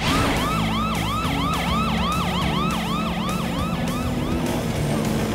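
Cartoon police-car siren on Chase's cruiser, wailing in quick up-and-down sweeps about three times a second. It fades out near the end.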